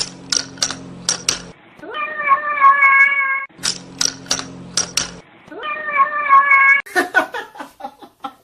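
A cat meowing: a long, level-pitched meow followed by a quick run of sharp clicks. The pair sounds twice over, then comes a third meow and a jumble of shorter cries near the end.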